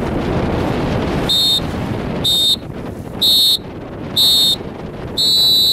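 Electronic timer beeping, high-pitched and loud: four short beeps about a second apart, then a longer beep near the end, in the pattern of a countdown's final seconds. Wind rushes on the microphone, with water noise, before and between the beeps.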